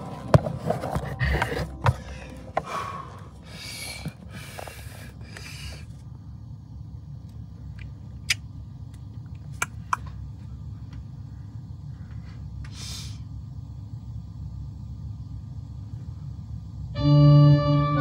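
Knocks and rustling of handling against wood, followed by a low steady rumble with a few faint clicks. About a second before the end, a loud sustained organ chord comes in.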